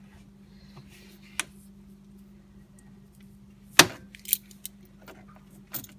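Sharp metallic clicks and clinks of pliers fitting a spring hose clamp onto a coolant hose, a handful of them, the loudest about four seconds in. A steady low hum runs underneath.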